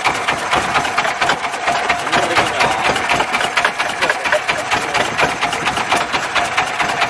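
Small boat engine running steadily at idle with a rapid, even chugging clatter.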